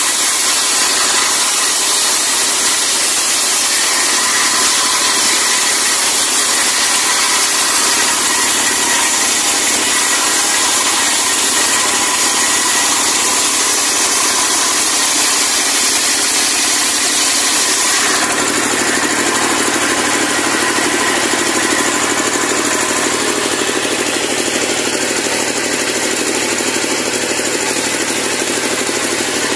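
Diesel-powered circular sawmill blade ripping a log lengthwise, a loud steady whine and hiss over the running engine. About two-thirds of the way through the sound shifts, the high hiss easing and a lower drone coming up.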